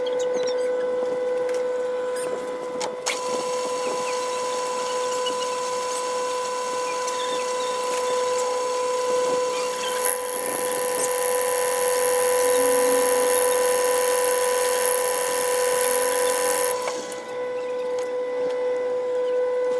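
A power tool's motor running steadily with a whine. From about three seconds in until about seventeen seconds, the noise of cutting or grinding is added, with a high-pitched squeal over its second half.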